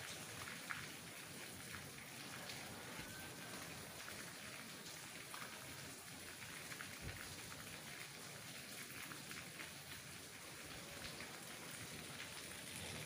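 Steady rain falling through mango trees, an even hiss with scattered drops ticking here and there.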